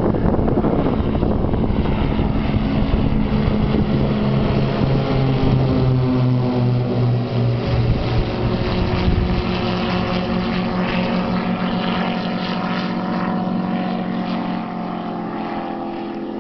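Propeller engine of the experimental Al-1 light aircraft droning in flight as it passes close overhead. Its pitch drops about halfway through, and the sound then slowly fades as the plane flies away.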